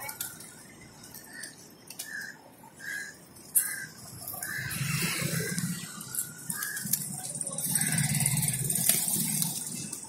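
Large flock of rock pigeons feeding, with wings fluttering and flapping as birds take off and land; the rushing of wings swells louder about halfway through. Early on, a short high call repeats roughly every half second.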